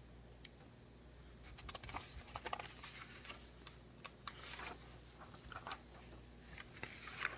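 Faint scattered clicks and short rustles of light handling, over a steady low hum.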